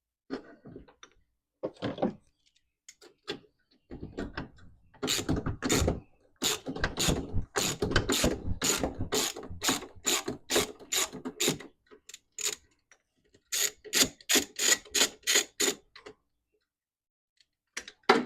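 Ratchet wrench clicking as nuts are backed off during master cylinder removal, in two long runs of steady clicks a few times a second, after a few scattered knocks of tools.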